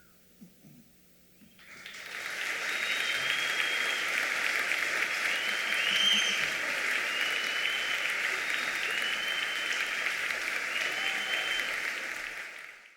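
Concert audience applauding, with a few whistles. The applause starts suddenly about a second and a half in, holds steady, and fades out near the end.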